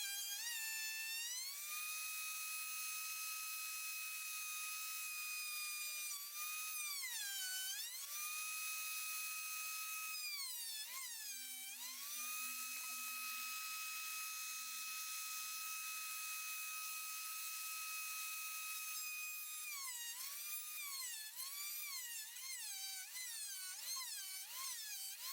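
Electric motor of a universal woodworking machine running with a steady high whine. Its pitch dips sharply and recovers each time the cutter takes load in the wood, a few times in the middle and about once a second near the end.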